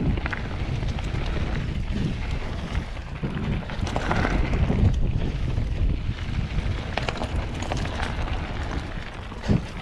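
Mountain bike descending a dirt singletrack: tyres rolling over dirt and dry leaves and the bike rattling over bumps, under heavy wind noise on the microphone. A sharp knock comes near the end.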